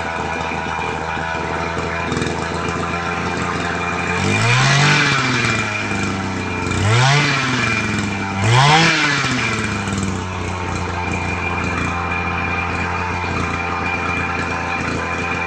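Small single-cylinder engine of a portable engine-driven pump running at a steady idle and revved up and back down three times about halfway through. It runs again after a repair for a weak spark and a new carburettor diaphragm, with the air-fuel mixture being adjusted.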